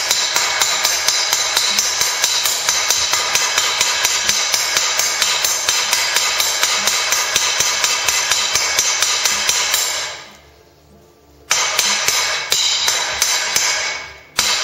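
Hammer blows on a steel anvil in a quick, even run, with the anvil ringing on each blow, as a square taper is hit and turned until it is round. The blows stop for a second or so near the end, then a few more follow.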